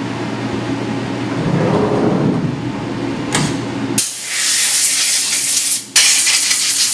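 Steady hum of a CNC mill running, then from about 4 s a compressed-air blow gun hissing as it blows chips off the vises, with a short break just before 6 s.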